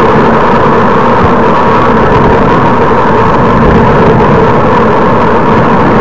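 Loud steady wind and road noise on a bike-mounted camera's microphone while riding a road bike, with a constant hum under it.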